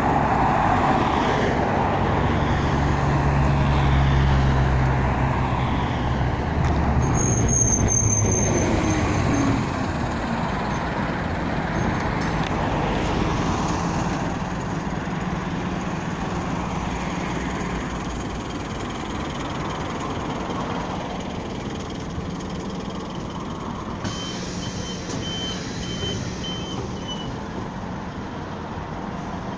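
Credo coach bus diesel engine running amid road traffic, with the low engine rumble loudest in the first nine seconds or so. A brief high squeal comes about seven seconds in, and a short string of high beeps near the end.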